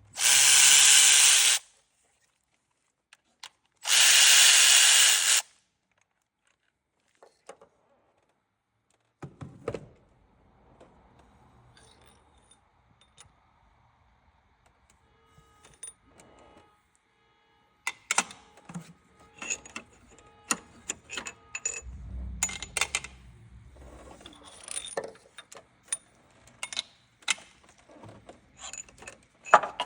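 Two loud bursts of a power tool, each about a second and a half of rushing hiss, in the first few seconds, followed by scattered light clicks, clinks and rattles of metal tools and engine parts while the timing chain is worked loose.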